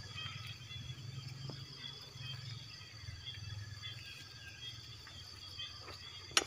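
Faint steady high-pitched insect chirring, with a low rumble through the first few seconds and a sharp click near the end.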